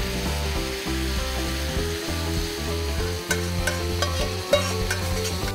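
Cheese sauce sizzling and spitting as it is poured onto a hot pan of fried Chinese sausage over a gas flame, with a few sharp crackles in the second half. Background music plays underneath.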